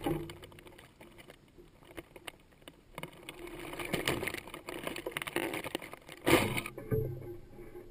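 Handling noise from a recurve bow, heard through a GoPro mounted on its stabilizer: scattered light clicks and rubbing as the bow is raised and drawn. About six seconds in there is a louder, brief noisy rush, followed by a dull thump.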